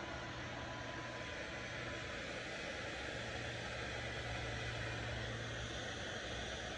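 Handheld hair dryer running steadily, blowing air onto a dog's wet coat: a constant rush of air over a low motor hum.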